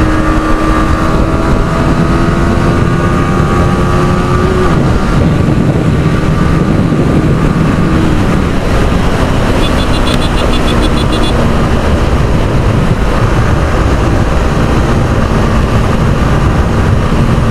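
Yamaha R15 V3's single-cylinder engine running at road speed under heavy wind rush on the rider's microphone. The engine note holds steady, drops about five seconds in, and then runs on at a lower pitch.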